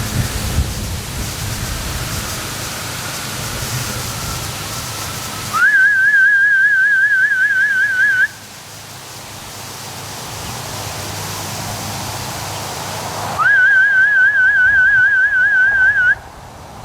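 A person's duck-calling whistle, sounded twice. Each call slides up, then warbles quickly about five times a second at one high pitch for nearly three seconds. Between the calls, wind gusts across the microphone.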